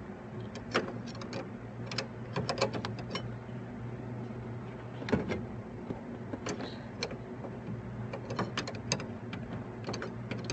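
Scattered small clicks, taps and scrapes of a hand tool working at the wiper/washer switch bezel under a 1973 Mustang's dashboard, loosening the bezel a little at a time. A low steady hum runs underneath.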